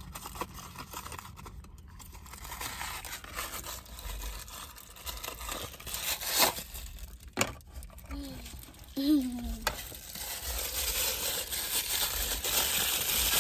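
Plastic toy wrapper crinkling and being torn open by hand, with crackling rustles, a few sharp snaps, and louder rustling near the end.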